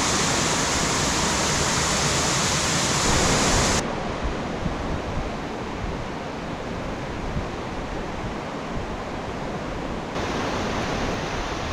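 Steady rush of a mountain stream and waterfall. About four seconds in it turns abruptly quieter and duller, then brightens somewhat again near ten seconds.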